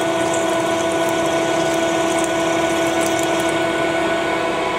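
Manual lathe running with a faceplate-mounted part spinning while a twist drill in the tailstock chuck drills a pilot hole under coolant. It makes a steady machine hum with brief high scratching noises from the drill cutting now and then.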